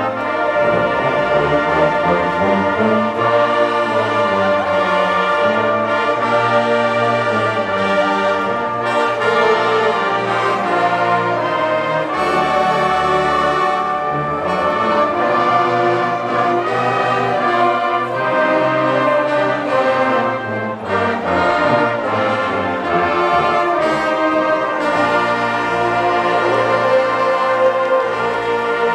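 High school band playing a loud, brass-heavy tune without pause.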